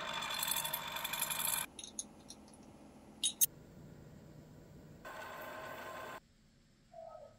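Milling machine's end mill cutting steel: a harsh cutting noise with steady tones in it, in two short stretches, the first under two seconds long and the second about a second long about five seconds in, both stopping abruptly. A couple of sharp clicks fall between them.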